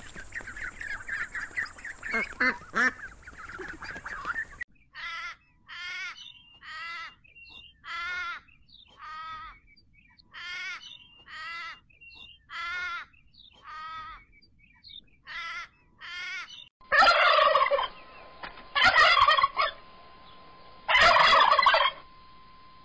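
Domestic turkeys gobbling in three loud bursts in the last six seconds. Before that comes a run of fast, high peeping that the footage points to as a duckling's, then a short animal call repeated about once a second for some twelve seconds.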